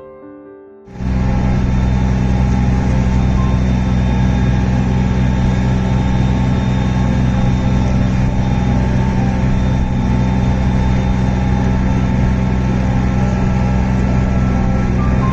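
Amphibian tour boat's engine running steadily under way, a loud constant drone with a low hum, cutting in about a second in.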